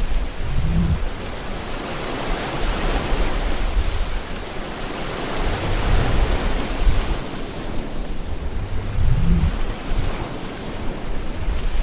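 Ocean surf: waves breaking and washing in continuously, swelling and easing every few seconds, with deep low surges as bigger waves break about a second in, around six seconds and around nine seconds.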